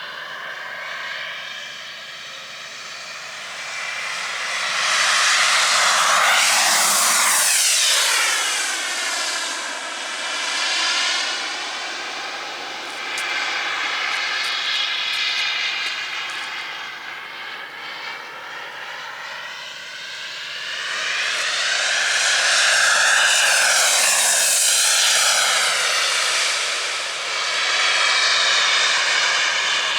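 Jetcat P100-RX model jet turbine flying, its whine and rush swelling loud and sweeping in pitch as the RC jet passes by, twice: about seven seconds in and again around twenty-three seconds in, fainter in between.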